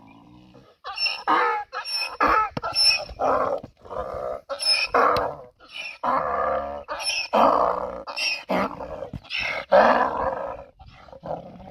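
A donkey braying: a long run of alternating hee-haw calls that starts about a second in and fades out near the end.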